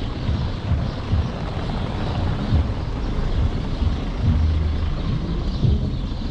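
Car driving slowly past over a cobblestone street, its tyres rumbling on the stones, with irregular low thumps throughout.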